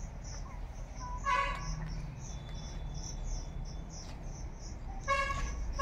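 An insect, cricket-like, chirping steadily at about three high chirps a second. A short pitched call cuts in about a second in, and another pitched sound begins near the end.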